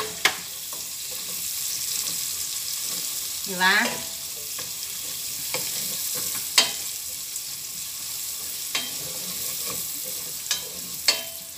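Chopped onions and garlic sizzling in butter in a stainless steel pot as a wooden spoon stirs them, knocking sharply against the pot several times.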